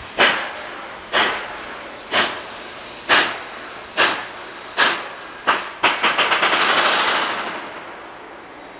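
Narrow-gauge coal-fired 2-8-2 Mikado steam locomotive working hard, its exhaust chuffing in loud, sharp beats that quicken from about one a second. About six seconds in, the beats come in a fast run and merge into a sustained rush of exhaust that fades away over the next two seconds.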